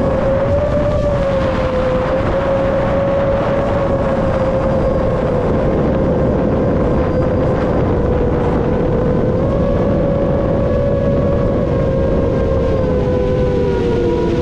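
Whine of a 7-inch FPV quadcopter's brushless motors (Emax Eco II 2806.5) and three-blade 7x3.5x3 propellers in steady forward flight, with wind rush. The pitch holds fairly steady, lifts slightly partway through and then sags near the end as the throttle eases.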